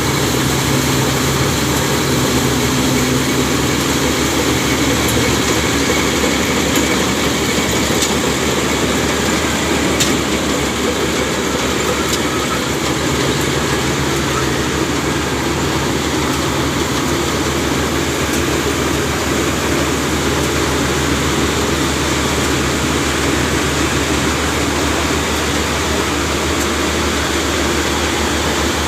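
Engine of a rice harvesting machine running steadily, with a few faint clicks over the even machine noise.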